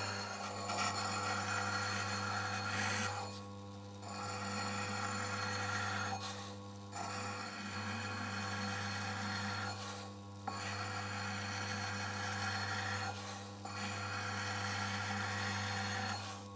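A bench machine's motor running with a steady hum while a metal watch case is pressed against its abrasive wheel, giving a rasping hiss of grinding or polishing. The work is lifted off the wheel briefly four times, and the machine winds down at the very end.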